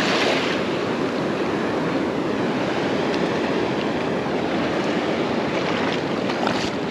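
Ocean surf washing up the beach: a steady rush of breaking waves and foamy swash over the sand, with some wind on the microphone.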